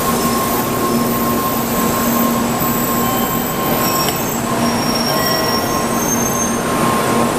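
N700-series Shinkansen train pulling into the platform and slowing: a steady running rumble with a constant hum. From about three seconds in, several short high-pitched squeals rise over it.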